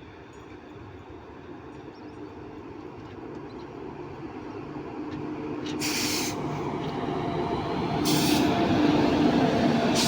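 Indian Railways train drawing nearer, growing steadily louder with a steady low hum. Three short, sharp noise bursts come about six, eight and ten seconds in.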